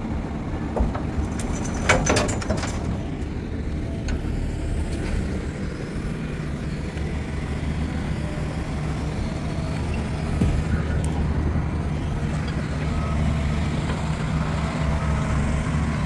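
Heavy diesel engines of a tracked excavator and a dump truck running steadily. A short clatter about two seconds in, as a bucketload of dirt drops into the steel trailer bed.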